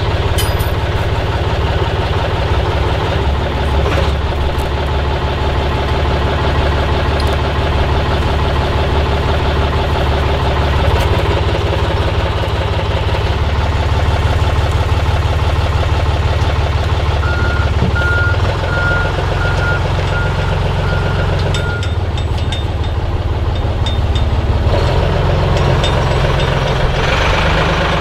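Heavy diesel engine of yard lifting equipment running close by, its pitch and load changing a few times as a railcar wheel set is lifted. A backup alarm beeps repeatedly for a few seconds past the middle.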